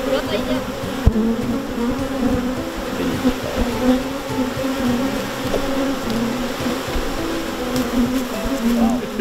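Dense buzzing of a great many honeybees swarming around an opened hive as its comb frames are lifted out, a steady wavering hum. A single short knock sounds about a second in.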